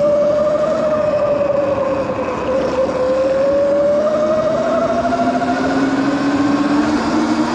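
Small pit bike engines revving, their pitch rising and falling slowly, with a second, lower engine note joining about five seconds in.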